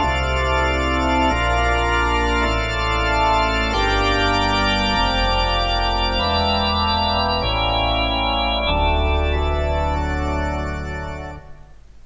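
Keyboard music of sustained chords over a stepping bass line, the chord changing about every second and a quarter, stopping shortly before the end.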